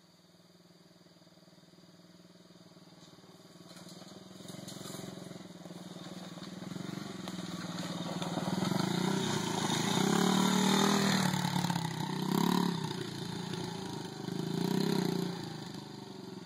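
Small 90cc dirt bike engine coming closer and growing steadily louder, with two brief surges of throttle near the end.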